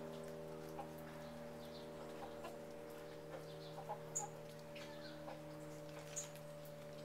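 Hens clucking softly now and then, in short faint calls, over a steady low hum. A few brief sharp high sounds come about four and six seconds in.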